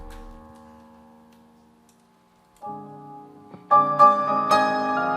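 Piano playing slow worship chords: a held chord fades away, a soft chord comes in about two and a half seconds in, and louder chords are struck from about three and a half seconds in.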